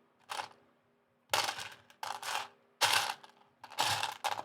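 Loose plastic Lego bricks clattering as a hand rummages through them, in several short bursts.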